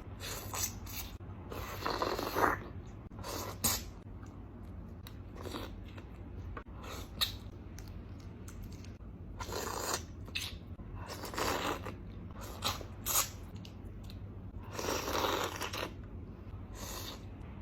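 Close-up mouth sounds of someone eating raw shrimp: irregular wet bites and chewing, coming in short bursts with a few longer ones.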